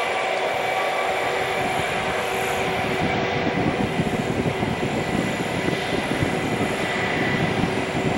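Ilyushin Il-96 airliner's four turbofan engines running as it rolls along the runway: a steady rumble with a high whine held on several steady tones, growing slightly louder and rougher about three seconds in.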